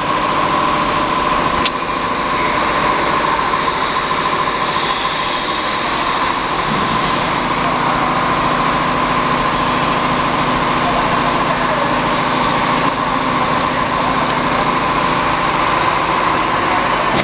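Steady mechanical hum of a CNC channel letter bending machine running, with a constant high whine. There is a single click about two seconds in and a short hiss about five seconds in.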